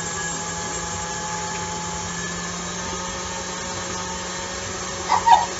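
Electric mixer with a whisk attachment running steadily, whipping a chilled shea-and-coconut butter blend into fluffy body butter. Its motor whine shifts to a lower pitch about halfway through.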